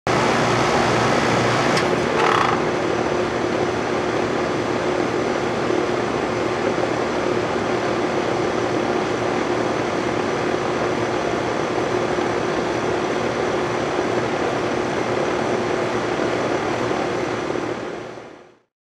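Rheem 4-ton central air conditioner's outdoor unit, Copeland scroll compressor and condenser fan, running with a steady hum and fan noise. A brief louder sound comes about two seconds in, and the sound fades out near the end.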